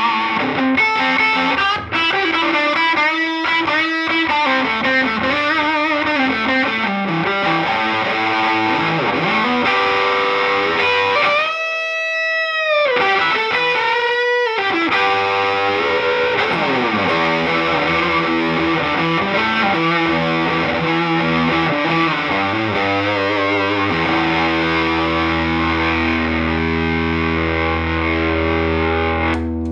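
Gibson Les Paul Classic electric guitar played overdriven through an amp: an improvised lead of quick note runs with string bends and vibrato. About halfway in a single high note is held with wide vibrato, and in the last several seconds a chord is left ringing.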